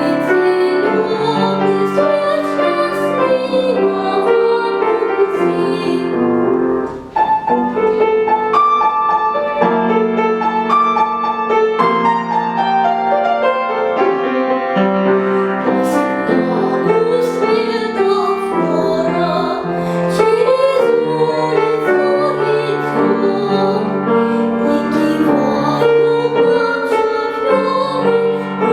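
A young girl singing a children's song in classical, academic style to piano accompaniment, with a brief pause about seven seconds in.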